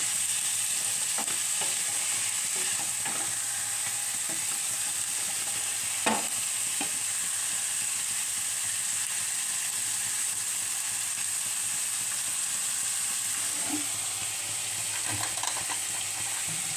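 Chicken, onions and whole spices frying in a pan with a steady sizzle, stirred and scraped with a wooden spatula. One sharp knock about six seconds in.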